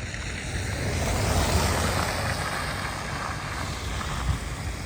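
Wind rumbling on the microphone, with a vehicle passing on a snowy road. The tyre noise swells to its loudest about a second and a half in, then slowly fades.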